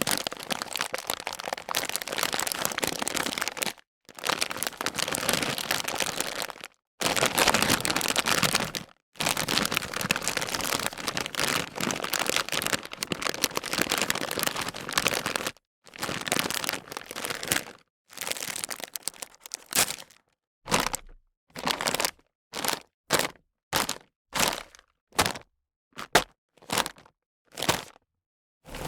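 Crisp potato chips crunching and cracking: long runs of dense crackling at first, then, from about two-thirds of the way in, short separate crunches about twice a second.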